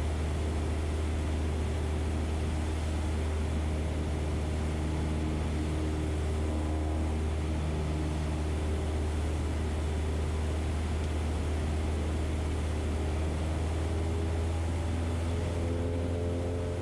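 Cessna 172's piston engine and propeller droning steadily in flight, a low hum with faint steady tones above it.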